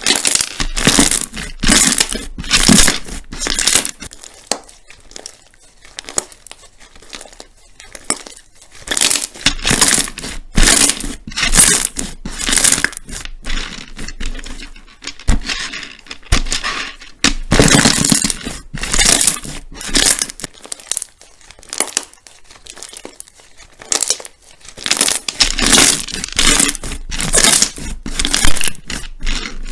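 Slime being squeezed and pressed by hand, making repeated crunchy, crackling squishes. The squishes come in runs of several a second, broken by short quieter pauses.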